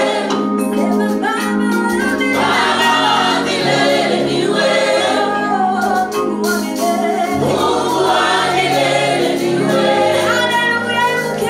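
Church choir singing a gospel praise song over instrumental accompaniment with low held bass notes.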